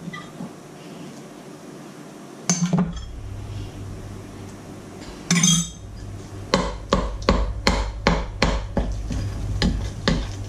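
A mixing utensil knocking against a mixing bowl as cake batter is mixed. There are two single knocks, then a run of regular knocks, about three a second, over the last few seconds.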